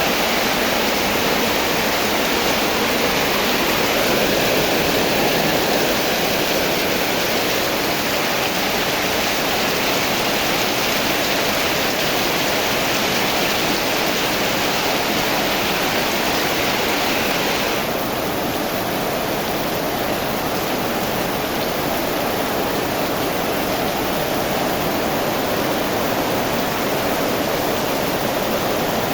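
Heavy rain falling, a steady dense hiss; about eighteen seconds in the higher part of the hiss eases slightly.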